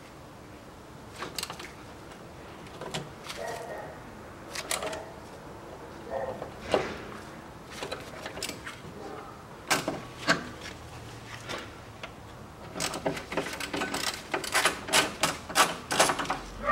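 Metal clicks and knocks of a socket tool on a long extension working the spare-wheel winch and its mounting bolts under a Land Rover Discovery 3. The clicks come singly and scattered at first, then in a quick run over the last few seconds.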